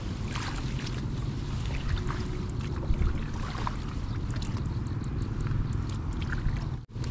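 Wind rumbling on the microphone, with light rustling and scattered small clicks as grass and a net fish trap are handled. The sound drops out for an instant near the end.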